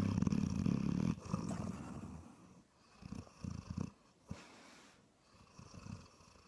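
Chocolate Labrador retriever puppy snoring in its sleep: one long, low snore over the first two seconds, then a few short, quieter breaths.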